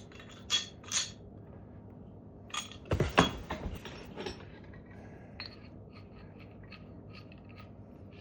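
Metal pipe fittings clinking and knocking against each other as they are handled and fitted together, with a louder cluster of knocks about three seconds in and lighter ticks after.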